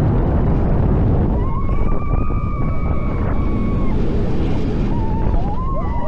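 Wind rushing over the microphone and the rumble of the Voltron Nevera's Mack Rides coaster train at speed, with a rider's long held scream from about a second and a half in and shorter rising yells near the end.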